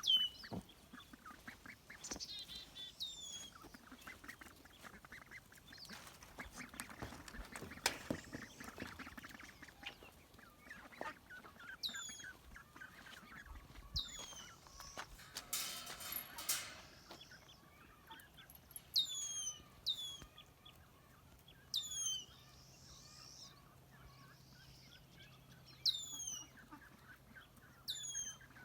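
Ducklings peeping: short, high-pitched calls that fall in pitch, given singly or in quick pairs every few seconds, with some rustling and scuffling between them.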